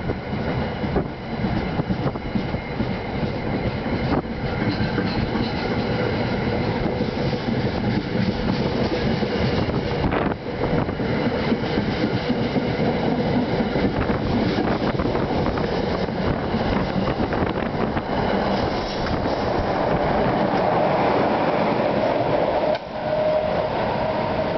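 New Jersey Transit commuter train of Comet IV coaches, pushed by an ALP-44 electric locomotive, pulling out of a station: a steady rumble of cars rolling by with wheels clicking over rail joints. Near the end a rising whine comes in as the train gathers speed.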